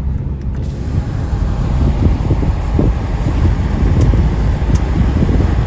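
Inside a moving campervan at road speed: a steady engine drone with tyre and road hiss. The hiss swells about a second in, typical of tyres on a wet road in the rain.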